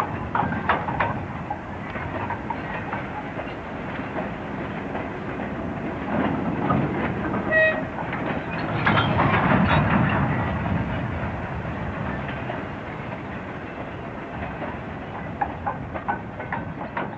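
Class 58 diesel locomotive hauling a train of MGR coal hopper wagons through the yard: steady rumble of the engine and wagons, with wheels clicking over rail joints. A brief tone comes about seven and a half seconds in, and the rumble swells around nine to ten seconds.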